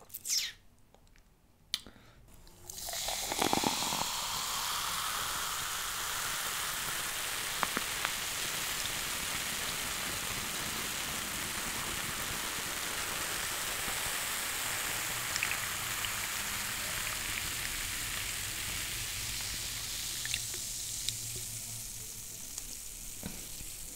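Coca-Cola poured from a can into a glass mug: the pour starts about three seconds in with a short rising pitch as the glass fills, then the foaming carbonation fizzes steadily, fading slowly near the end.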